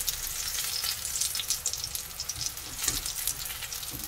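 Eggplant and zucchini slices sizzling and crackling steadily as they pan-fry in hot oil, with a couple of soft knocks about three and four seconds in.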